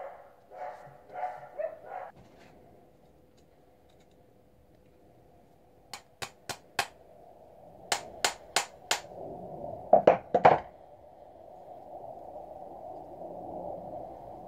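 Hammer tapping on a folding knife: two quick runs of four light, sharp taps, then three heavier blows about ten seconds in.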